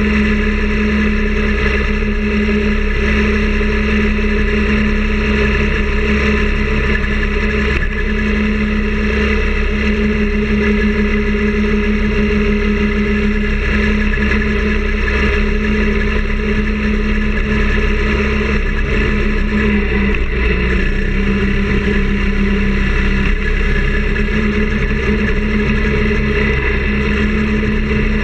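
Minibike's small engine running steadily at cruising speed, holding an even pitch with only a brief dip about twenty seconds in.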